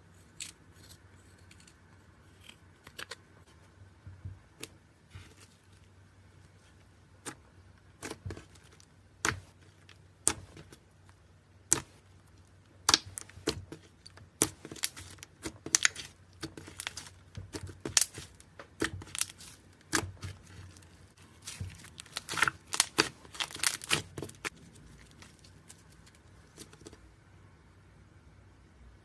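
Hands squishing and stretching slime, giving a run of sharp sticky pops and clicks that grows dense in the middle and dies away near the end.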